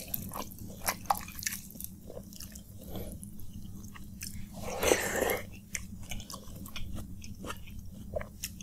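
Close-up eating sounds of panta bhat, water-soaked rice, eaten by hand: wet squishing as fingers work the rice with mashed potato, and chewing with many small wet clicks. About halfway through, a louder, longer wet mouth sound as the handful goes in.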